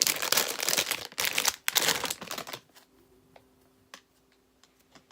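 Plastic packaging crinkling and rustling as a squishy toy is handled, stopping about halfway through; after that only a few faint clicks over a faint steady hum.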